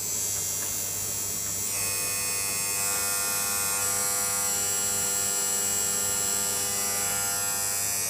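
Philips D180 tumble dryer's electric buzzer sounding: a loud, harsh, steady buzz that starts abruptly, its tone shifting slightly about two seconds in.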